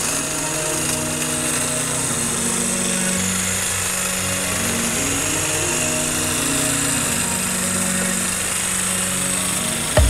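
Cordless Makita LXT pole hedge trimmer running steadily, its reciprocating cutter blades making a continuous rattling buzz. Background music with a changing low melody plays underneath.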